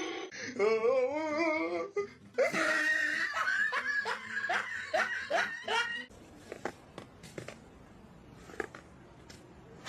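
Person laughing in a run of short, quick laughs, falling away about six seconds in to a quieter stretch with a few faint clicks.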